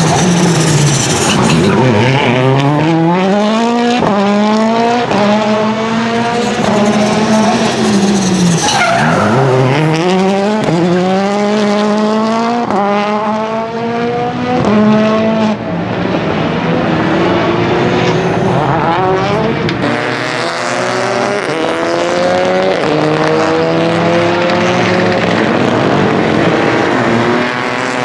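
Rally car engine accelerating hard through the gears, the pitch climbing with each gear and dropping at every shift. About a third of the way in, it falls away as the car brakes, then builds again, with tyres skidding.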